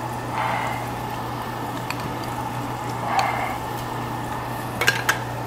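Meat sizzling on a charcoal-briquette grill over a steady low hum, with a soft slurp from a soup spoon about three seconds in and a few light clicks of utensils near the end.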